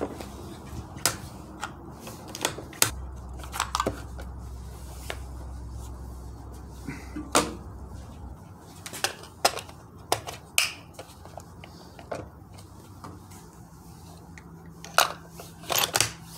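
Scattered metallic clicks and clacks of a Ruger American .308 bolt-action rifle being loaded: cartridges handled at the action and a polymer magazine seated in the rifle. No shot is fired.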